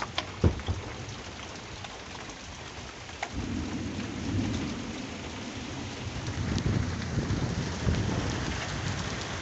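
Steady rain falling, with a few sharp taps in the first second. From about three seconds in, thunder rumbles low, swelling and fading several times.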